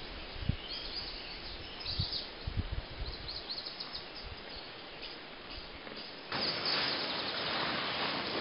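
Woodland ambience: birds chirping faintly over a quiet hiss, with a few low thumps in the first three seconds. About six seconds in it changes abruptly to a louder, steady rustling hiss with birdsong.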